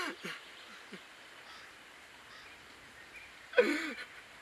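A person crying: short falling sobs at the start, then a sudden loud sob or gasp with a sliding pitch about three and a half seconds in.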